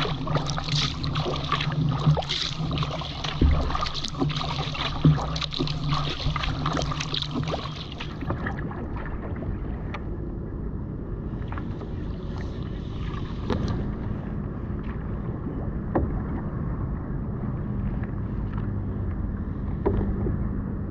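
Water splashing from a sea kayak's paddle strokes, with several sharper splashes. About 8 s in the sound turns duller and steadier, as water rushing along the kayak's hull at the bow.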